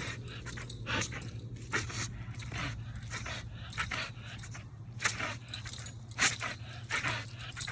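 A dog breathing hard in quick, noisy pants, irregularly spaced, over a steady low hum.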